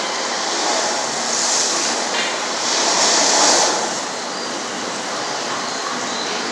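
A steady rushing noise that swells twice in the first half, then eases slightly.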